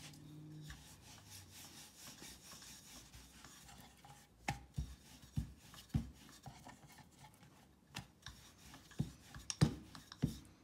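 Wooden rolling pin rolling out corn-flour roti dough on a floured wooden board: a faint rubbing, then from about halfway a run of irregular sharp wooden knocks.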